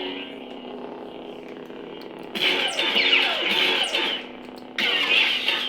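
Lightsaber sound font (Kyberphonic's Sol font) playing from a saber's soundboard: a steady low electronic hum. Two louder effect bursts with falling whooshes come in, one about two seconds in and a shorter one near the end.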